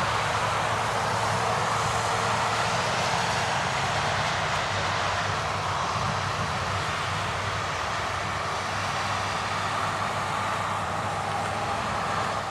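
Steady rain falling outdoors, an even hiss with a faint low hum beneath it.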